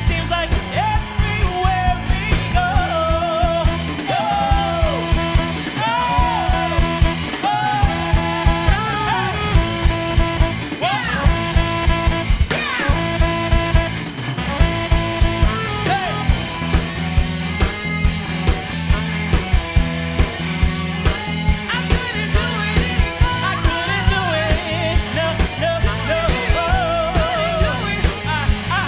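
Live band playing a pop-gospel-jazz number: drum kit keeping a steady beat under bass and guitar, with a lead melody line bending in pitch above.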